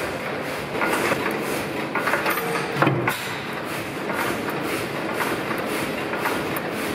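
Old Tangye horizontal single-cylinder stationary petroleum engine running steadily, with a regular mechanical clatter from its moving parts. A louder knock comes about three seconds in.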